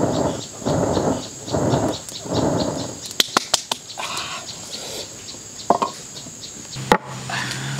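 A person blowing hard on a wood fire to fan the flames: four long puffs of breath about two-thirds of a second apart. These are followed by a few sharp clicks and knocks, over a steady high shrill of insects.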